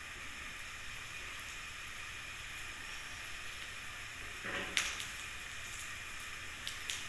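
Pancake batter frying in oil in a small nonstick pan over a gas burner: a steady sizzling hiss. About four and a half seconds in, a silicone spatula brushes the batter and taps the pan briefly, and a few light ticks follow near the end.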